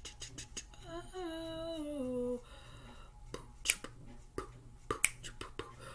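A woman humming a short tune that steps downward in pitch, starting about a second in and lasting about a second and a half. Sharp clicks of fingernails tapping on a smartphone screen are scattered throughout, the loudest near the middle.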